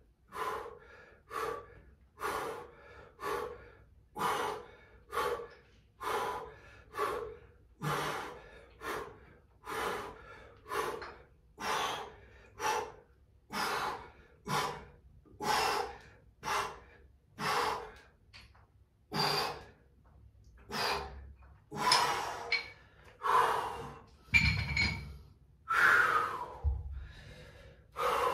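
A person's hard, rhythmic breathing while exercising, with a forceful breath roughly every second, in time with up-and-down repetitions. The breaths grow louder in the last few seconds.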